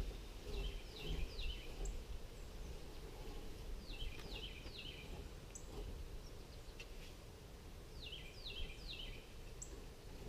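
A bird calling a short phrase of three quick falling notes, repeated three times a few seconds apart, with a few fainter high chirps, over a low background rumble.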